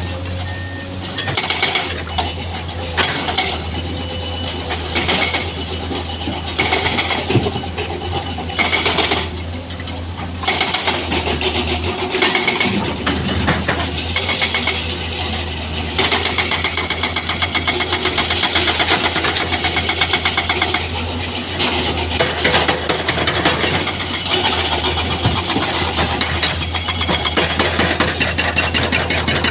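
Heavy diesel machinery engine running steadily, with scattered clanks and knocks through the first half. From about halfway a fast continuous rattle sets in.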